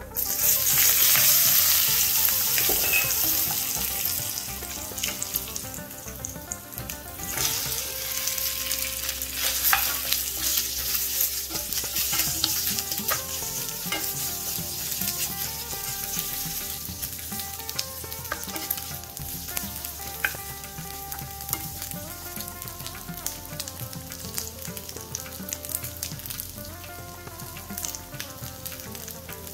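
Curry leaves dropped into hot oil with chilli powder, sizzling loudly at once and dying down over a few seconds. Then taro root slices frying in the pan with a steady sizzle, stirred with a wooden spatula.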